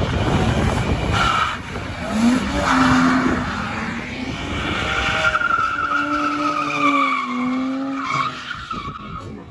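BMW drifting: the engine is revved hard, its note rising and holding, while the tyres squeal and skid on the asphalt. The sound fades near the end.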